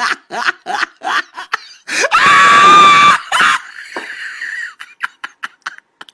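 Rapid, rhythmic laughter, then a loud, high-pitched shriek of laughter about two seconds in that lasts about a second, trailing off into breathy giggles.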